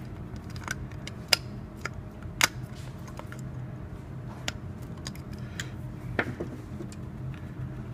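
Needle-nose pliers clicking and tapping against a copper wire and the screw terminal of a plastic light-fixture base while the neutral wire is bent into place: a handful of sharp, scattered ticks over a steady low hum.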